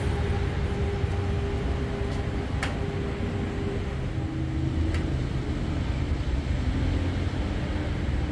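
Steady low engine hum of street traffic. Its tone steps down slightly in pitch about four seconds in, and two sharp clicks sound in the middle.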